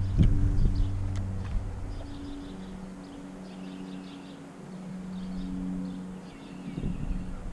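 Small birds chirping in short repeated calls over a steady low hum, with a few soft knocks in the first second or so.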